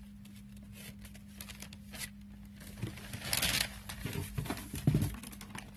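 Products and packaging being handled inside a cardboard shipping box: light clicks and rustling, a louder crinkling rustle about halfway through, then a few knocks and a dull thump near the end as items are lifted out.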